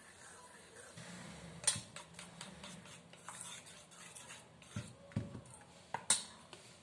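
Metal spoon stirring thick rice-flour batter in a stainless steel bowl, scraping and clinking against the bowl, with several sharp clinks, the loudest about two seconds in and near the end.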